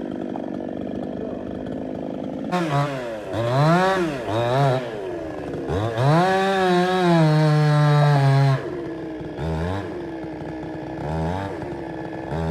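Chainsaw engine idling, revved up and down several times from about two and a half seconds in, then held at high revs for about two seconds before dropping back to idle. Short blips of throttle follow near the end.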